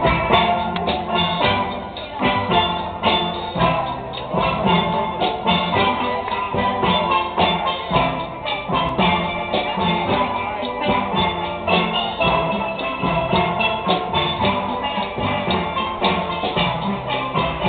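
A steel drum band playing: many steelpans struck in quick, rhythmic runs of ringing pitched notes, with a drum beat underneath.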